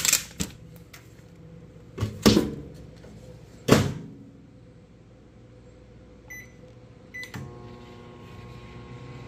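Hamilton Beach microwave oven being loaded and started: a few sharp knocks and clatters, then two keypad beeps about six and seven seconds in, after which the oven starts running with a steady hum.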